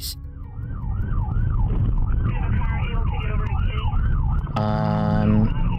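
Police cruiser siren on a fast rising-and-falling sweep, about two cycles a second, over engine and road rumble. Near the end a steady horn blast sounds for under a second.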